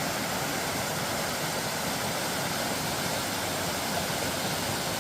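Steady rushing of a small waterfall in a mountain stream.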